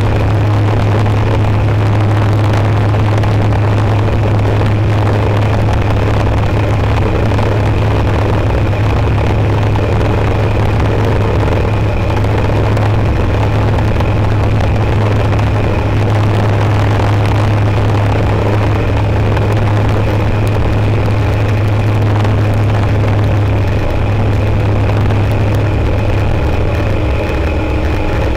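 Rotax 912 ULS flat-four engine and propeller of an Aeroprakt A22LS Foxbat ultralight running steadily in flight, a loud, even low drone heard from inside the cockpit.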